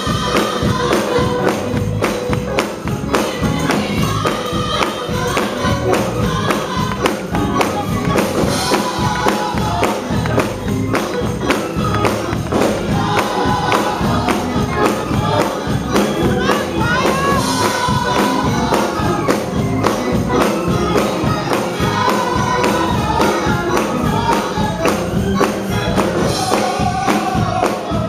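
Gospel choir singing with a steady rhythmic beat and clapping.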